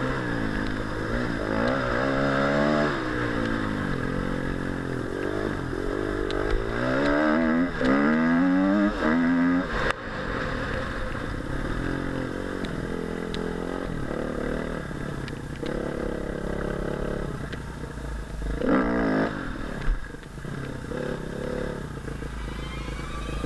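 2013 Husqvarna TE 250 R's four-stroke single-cylinder engine with a Leovince X3 exhaust, revving up and down repeatedly through riding, its pitch rising and falling. About ten seconds in the sound changes abruptly, and the engine then runs lower and steadier with shorter rises and one sharp rev near the end.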